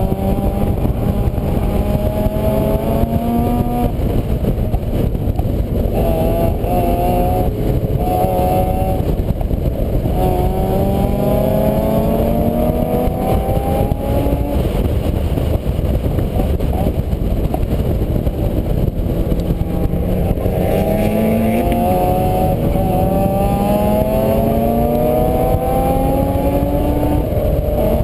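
A vehicle engine accelerating again and again, its pitch climbing slowly and then dropping back as it shifts up through the gears, over a dense low rumble.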